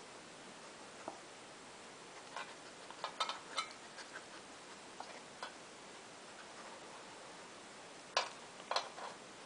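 Metal muffin tin knocked about by a dog nosing among the tennis balls in its cups for treats: irregular light clinks and taps, a flurry in the first half and two louder knocks near the end.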